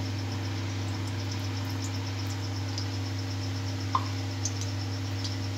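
Steady low hum and faint hiss, with a fast, high-pitched pulsing chirp repeating about five times a second, a few faint ticks, and a single click about four seconds in.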